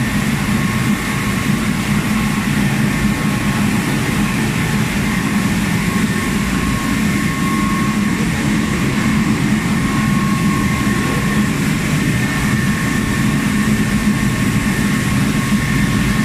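Rice mill machinery running: a loud, steady mechanical drone with a constant low hum and a couple of steady higher whines held over it.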